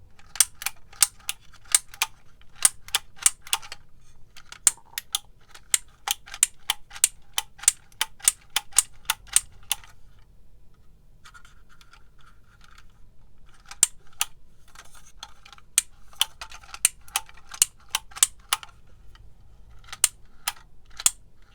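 Plastic label maker clicking sharply and repeatedly, about three clicks a second, as it is worked through another test label; the clicking breaks off briefly about ten seconds in, then resumes.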